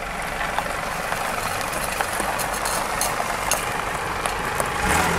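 Toyota Harrier SXU10's engine idling steadily, with a scattering of short, sharp clicks over it.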